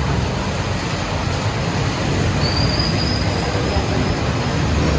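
City road traffic in the rain: a steady low rumble of vehicles under an even hiss. About halfway through, a thin high squeal holds for about a second and a half.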